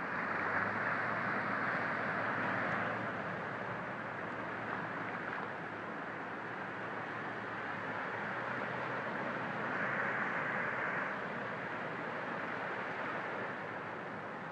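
Vehicles driving through a flooded road, their tyres throwing up sheets of spray, over a steady rushing hiss of water. The splashing swells louder for the first few seconds and again about ten seconds in.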